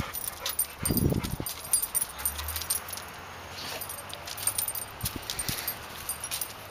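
Metal tags on a dog's collar jingling in many short clinks as the dog walks and sniffs about, with a dull thump about a second in.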